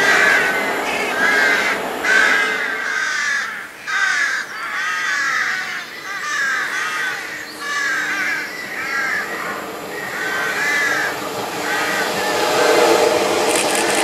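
A crow cawing over and over, about one short caw a second. The low rumble of a train fades out during the first few seconds, and an approaching Omnéo Régio 2N electric train's rumble rises near the end.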